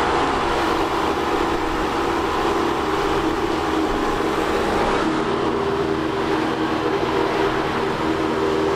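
Boat engine running at a steady speed underway, a constant drone with a rushing hiss over it.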